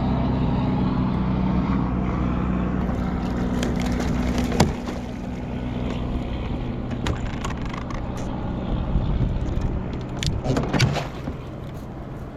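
A boat motor runs steadily, then cuts off with a sharp click about four and a half seconds in. Scattered knocks and clatter follow, with two louder ones near the end.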